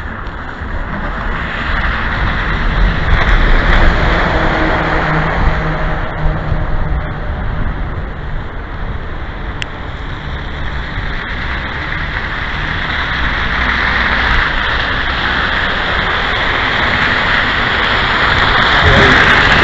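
City street traffic: cars and a bus passing on a wet, slushy road, a steady hiss of tyres that swells a few seconds in and again near the end as vehicles go by.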